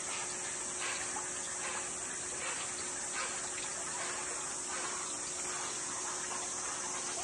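Steady high-pitched insect drone that never changes, with faint scattered scuffs beneath it.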